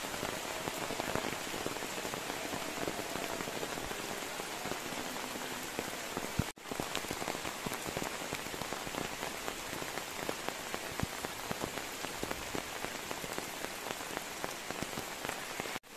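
Steady rain falling, an even hiss with many small drop ticks. The sound drops out for an instant twice.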